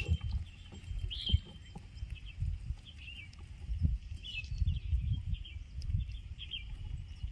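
Outdoor ambience: low irregular rumbling with short high chirps, likely from a bird, every second or so.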